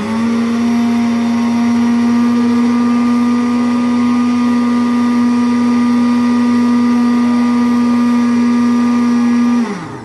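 Electric countertop blender running steadily at a constant speed, blending a thick cake batter. Its motor cuts off near the end, the hum falling in pitch as it winds down.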